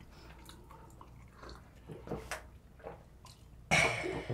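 People sipping and swallowing small shots of a drink at the table, with small mouth and glass sounds, then a loud breathy exhale near the end as the drink goes down.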